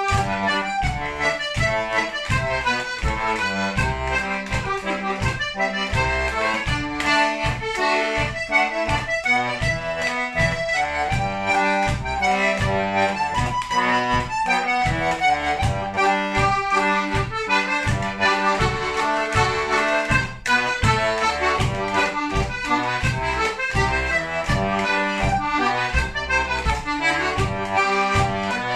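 Melodeon (diatonic button accordion) playing an English folk tune solo. The melody runs over a steady, rhythmic pumping of bass and chords.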